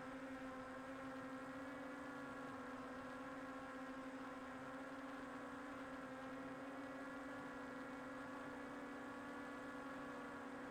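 A faint, steady hum on one held pitch with higher overtones, unchanging throughout.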